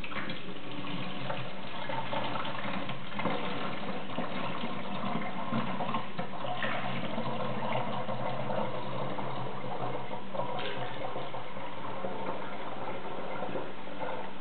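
Mango juice pouring steadily from a plastic jug through a plastic funnel into a glass bottle.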